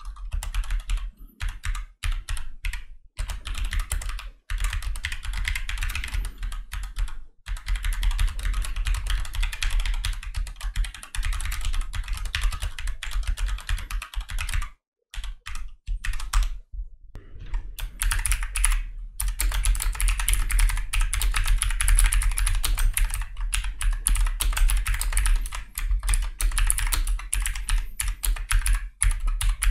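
Computer keyboard typed on quickly and continuously, a dense run of key clicks with short pauses about halfway through, picked up by a Maono AU-PM360RT desktop microphone.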